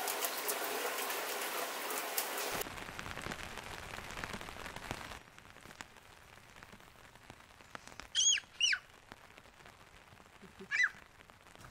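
Heavy rain falling steadily, with drops tapping, loud for the first couple of seconds and fading out by about five seconds in. Then a quiet background broken by two quick high chirps about eight seconds in, typical of a bird, and a short falling call near the end.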